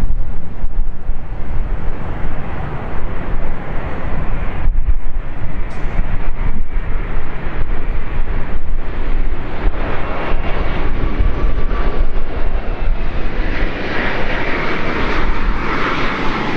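Jet airliner on approach to land, its engines giving a steady rushing rumble; about ten seconds in a higher whine joins and grows louder toward the end as the jet comes closer.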